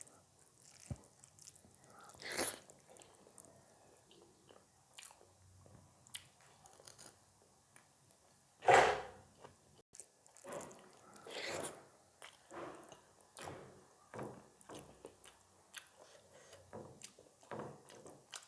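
Close-up chewing and crunching of food in the mouth, with irregular crisp bites and one loud crunch about nine seconds in.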